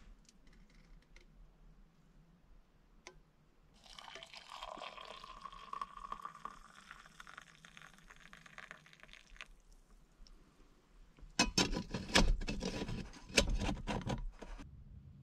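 Liquid pouring for about five seconds, then a burst of loud clattering knocks, like utensils or gear being handled.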